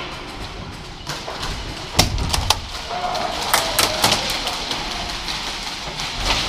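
Sharp clicks and knocks, a quick cluster about two seconds in and another around three and a half to four seconds in, over a steady hiss.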